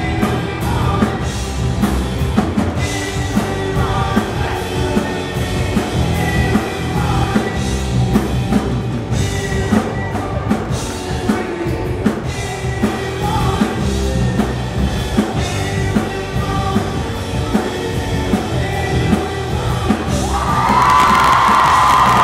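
Live rock band playing: a male lead voice singing over drum kit and electric guitar, heard from among the audience. About twenty seconds in, loud yelling and cheering from the crowd rises over the music.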